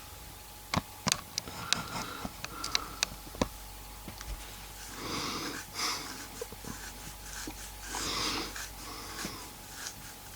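A person's wheezy breaths, two of about a second each in the second half. Before them comes a quick run of sharp clicks and taps in the first few seconds, the loudest sounds here.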